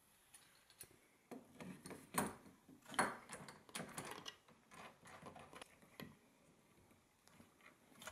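Handling noise of a metal screw clamp and a plastic belt-sander body being fitted to a workbench edge: a run of light clicks and knocks, the loudest two close together, then quieter near the end as the clamp screw is turned by hand.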